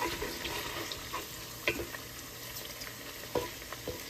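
Thick-cut bacon sizzling steadily as it fries in its own rendered grease in a ceramic nonstick stock pot, with a few scrapes and knocks of a wooden spatula flipping the pieces.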